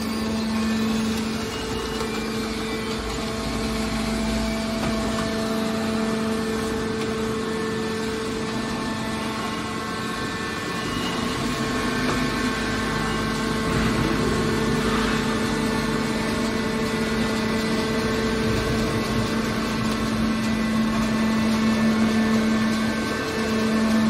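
Hydraulic scrap metal baler's power unit running at idle with a steady, even hum.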